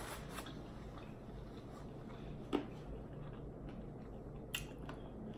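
Quiet room tone with a couple of faint, short clicks, about two and a half and four and a half seconds in.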